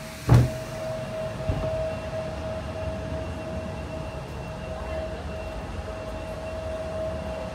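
A single thump, then steady airport ramp noise: a low rumble with a steady droning tone over it.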